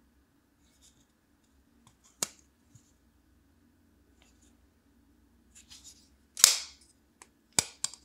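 Kizer Gryphon liner-lock folding knife being closed and flipped open. Its blade pivot and lock give sharp metallic clicks: one about two seconds in, the loudest and slightly longer snap a little after six seconds, and another click about a second later, with faint handling rustle between them.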